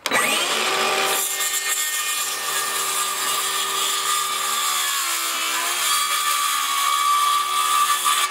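DeWalt DCS391B 20-volt cordless circular saw spinning up with a rising whine, then cutting across a 1-inch rough-sawn board from about a second in: a steady high whine over the noise of the blade in the wood. The pitch sags slightly under load about five seconds in, and the sound stops abruptly at the end of the cut.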